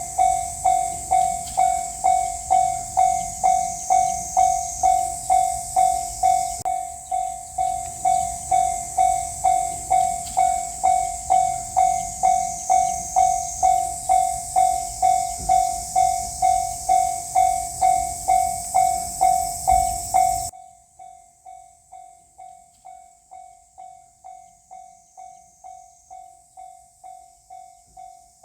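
Japanese railroad crossing's warning bell ringing a single tone about twice a second, over the rumble and hiss of a passing train. About twenty seconds in, the train noise stops suddenly and the bell carries on much quieter.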